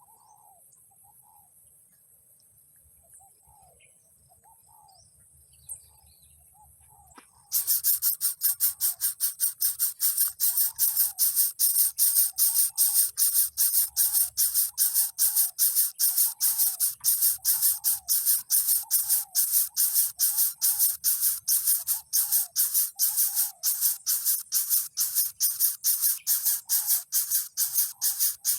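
Faint, short chirps of small birds repeating. About a quarter of the way in, a loud, rapid, even pulsing high hiss of about four pulses a second starts suddenly and stays over the chirps.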